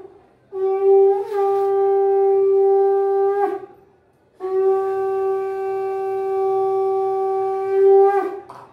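Conch shell (shankha) blown in two long, steady blasts of about three and four seconds, with a short pause between them. Each blast has a brief wobble in pitch where it starts and ends.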